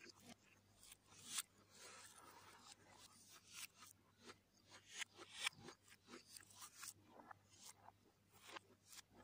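Faint, irregular clicks and wet smacks of a person eating fried rice by hand: fingers mixing and squeezing the rice on the plate, and chewing.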